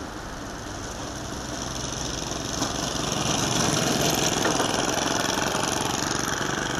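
Small engine of a radio-controlled Piper Cub-style model aeroplane running at low throttle as the model lands and taxis. It grows steadily louder over the first few seconds as the model comes closer, then holds.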